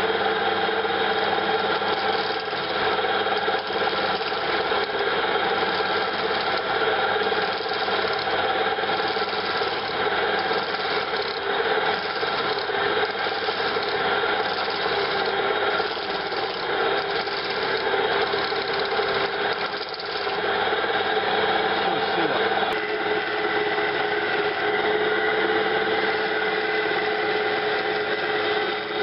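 Wood lathe running while a chisel scrapes a disc of very hard material on the spindle, a steady rasping over the motor's hum; the material is so hard that the chisel hardly takes it. The hum's tone changes slightly a little after two-thirds of the way through.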